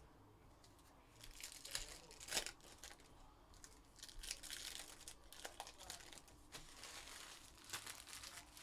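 Plastic trading card pack wrappers being torn open and crinkled by hand in three short bursts, with one sharp click about two and a half seconds in.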